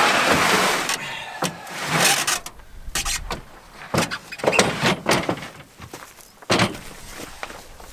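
Camping gear being handled and unpacked: a scraping, rushing slide in the first second, then a string of knocks, clacks and rustles as items are pulled out and set down.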